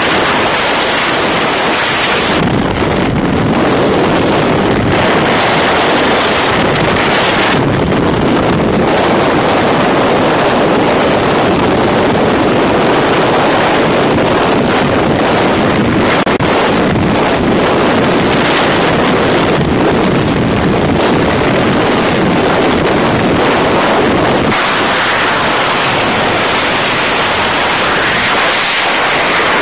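Loud, steady rush of freefall wind buffeting a camera's microphone as skydivers fall.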